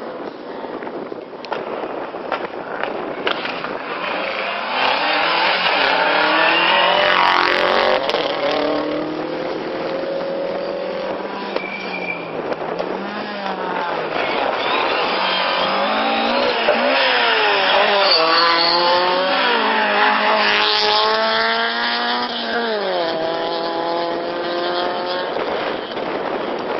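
Rally car engine at full throttle, the Mk2 Ford Escort among them: the pitch drops as the car brakes and changes down for the junction, then climbs again through several quick upshifts as it accelerates away. Near the end, another car's engine comes in rising.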